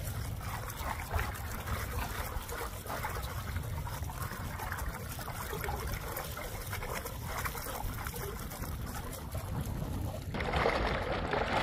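Water gurgling and churning around the GoBoat's 12V electric trolling motor propeller. The gurgle is the sign of the motor sitting too shallow, which lowering it deeper into the water cures. Near the end it gives way to a louder, steadier rush.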